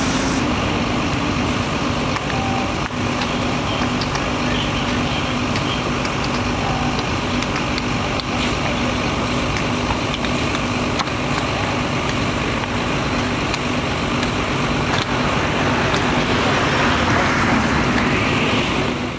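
Fire engines running steadily with their pumps working, a constant hum, over the hiss of a hose jet and scattered crackling from a burning pile of electronic scrap. The hiss swells near the end.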